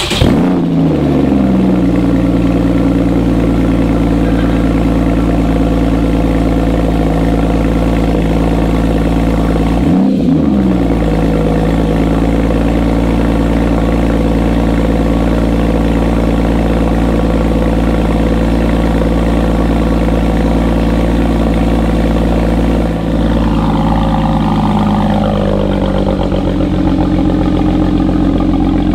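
Porsche 981 Cayman S 3.4-litre flat-six firing up through a newly fitted SOUL valved exhaust with the valves open, flaring at the start and settling into a steady idle. A short blip of revs about ten seconds in, and the idle steps down lower near the end. The sound echoes off the garage walls.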